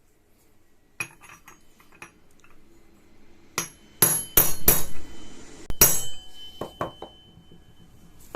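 Hammer tapping a metal driver tool to seat a seal or bearing flush in a Honda PCX 150's secondary pulley hub: a series of irregular metallic taps that ring briefly, loudest around the middle.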